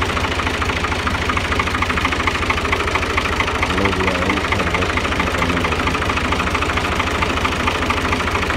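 New Holland Al-Ghazi tractor's diesel engine idling steadily with an even, fast beat.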